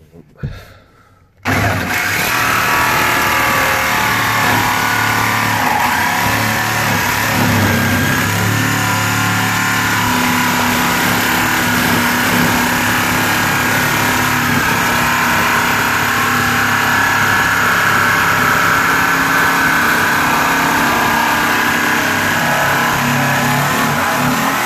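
Bosch PST jigsaw with a metal-cutting blade starting about a second and a half in, then running steadily as it saws through the sheet-steel bulkhead panel.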